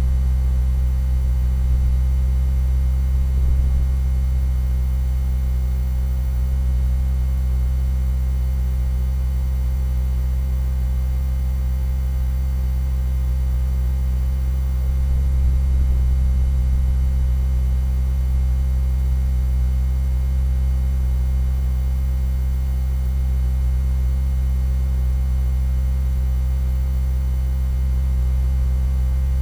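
A steady, low-pitched hum that does not change, made of a few deep tones stacked together.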